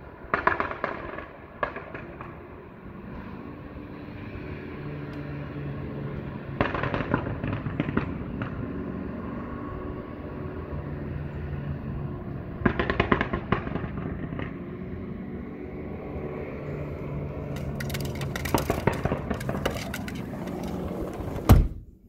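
Unidentified machinery running with a steady low drone, broken by a burst of rapid banging and clattering about every six seconds. A single loud thump comes just before the end.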